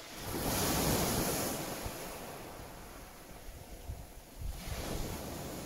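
Sea surf breaking at the shoreline: one wave crashes and washes up about half a second in, fading away over a couple of seconds, and another breaks near the end. Wind rumbles on the microphone now and then.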